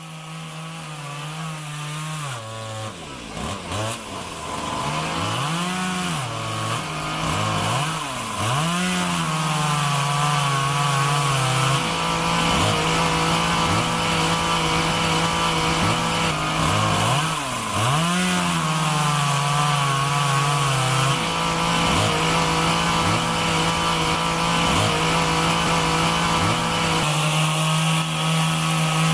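Chainsaw running at high speed while cutting wood, growing louder over the first few seconds. Its engine pitch dips several times as the chain bogs in the cut, then picks back up.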